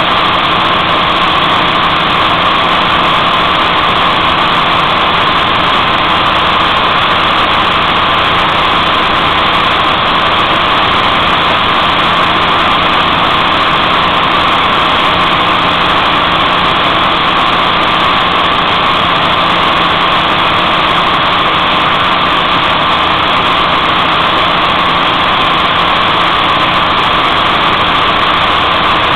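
Moto Guzzi California's V-twin engine running at a steady cruising speed, heard from a bike-mounted camera under a loud, even rush of wind and road noise.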